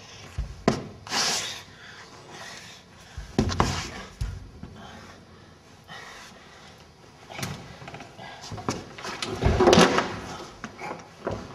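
Scattered knocks and bumps in a small room, with a louder jumble of them about ten seconds in.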